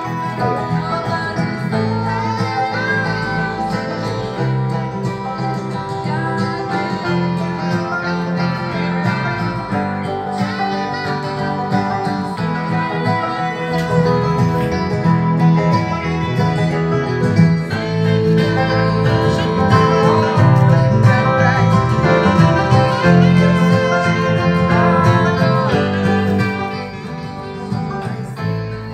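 Music with guitar and a singing voice playing back from a multitrack session through studio monitor speakers. It grows louder about halfway through and drops back near the end.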